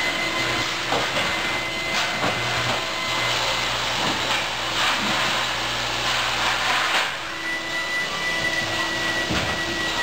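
Automated robotic welding line running: a steady hiss and hum of machinery with a thin high whine that drops out for a few seconds in the middle, and a few short sharp noises about 2, 5 and 7 seconds in.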